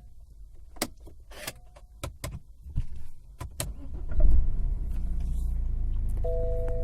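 A few light clicks, then a BMW's engine cranks and catches about four seconds in and settles to a steady idle. Near the end a steady two-note warning chime from the car comes on.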